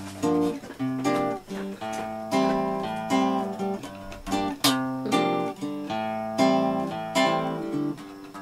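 Acoustic guitar strumming chords, each chord left to ring before the next strike.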